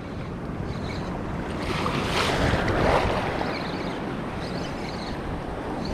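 Sea waves washing on the shore, one swelling and breaking about two to three seconds in, with wind on the microphone.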